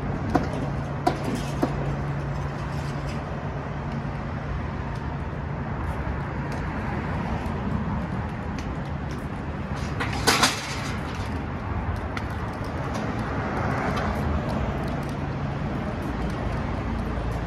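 Street traffic with the steady low hum of an idling vehicle engine. There are a few light clicks near the start and a sharp clatter about ten seconds in.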